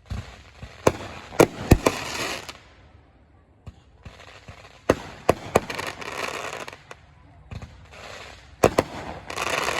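Fireworks going off: sharp bangs, each group trailing into a crackling hiss, in three volleys.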